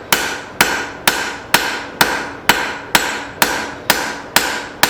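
Rounding hammer striking hot leaf-spring steel on an anvil in a steady rhythm, about two blows a second, each blow leaving a short metallic ring. The smith is thinning the bar down and shaping it.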